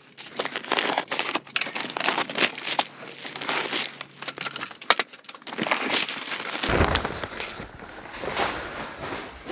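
Thin polyethylene plastic sheeting (4 mil poly vapor barrier) crinkling and crackling irregularly as it is handled.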